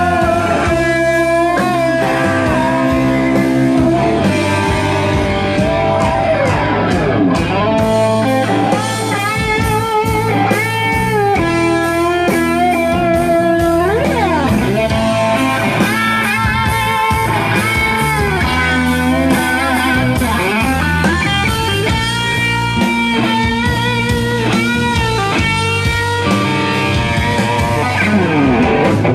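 Rock band playing an instrumental passage, a lead electric guitar playing bent, wavering notes over a steady backing.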